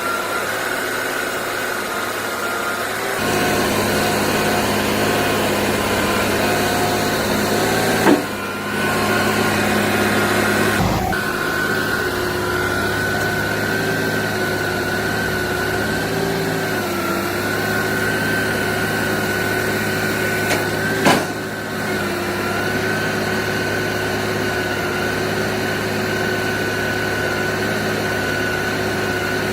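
Concrete pump truck running steadily: its diesel engine hums under a steady high whine. Two sharp knocks sound, about eight and twenty-one seconds in.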